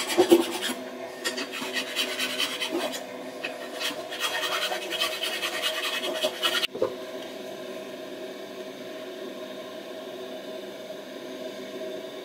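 Hand-finishing a small wood carving with a thin file or scraper and sandpaper: quick, uneven rasping strokes on the wood. They stop abruptly a little past halfway, leaving only a steady background hum.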